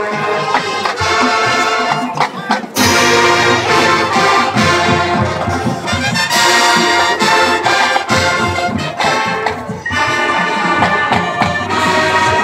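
Marching band playing, led by brass with percussion underneath. The full band comes in loud about three seconds in, drops back briefly near the ten-second mark, then enters strongly again.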